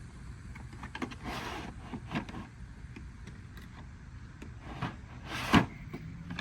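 Hand tools knocking and scraping against metal under a car during work on the oil drain plug: a few scattered clicks and a short scrape, with one sharp clank about five seconds in.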